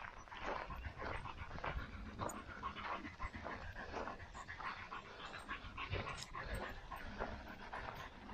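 Footsteps on a trail, a quick, irregular run of short knocks, with heavy panting.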